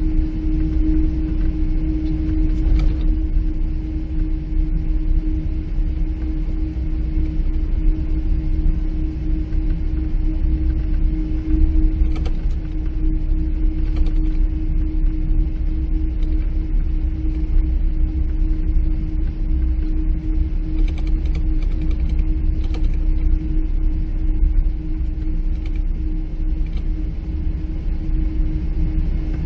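Cabin noise of a Boeing 777-300 heard from the rearmost seat: a steady low rumble with a steady hum, and a few faint clicks and rattles from the cabin.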